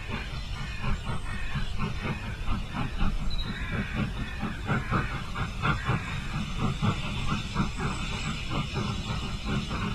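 Steam locomotive sound effect: steady exhaust chuffs, about two to three a second, over a continuous hiss and low rumble, with the chuffs becoming plainer about halfway through.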